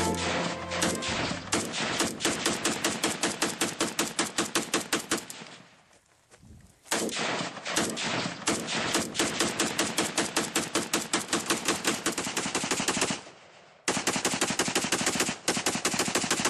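Machine-gun fire: three long bursts of rapid shots, about seven a second. The first fades away, the second starts about halfway through and stops abruptly, and the third begins near the end.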